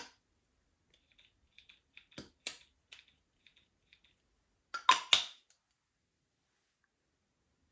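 A string of light clicks and taps, a few a second, then two sharper, louder snaps about a third of a second apart near the middle.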